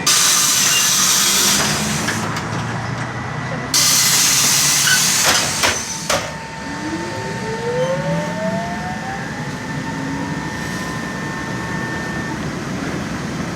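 LAZ E183D1 trolleybus: two loud bursts of compressed-air hiss, then the traction drive's whine rising steadily in pitch as the trolleybus pulls away, over a steady low rumble.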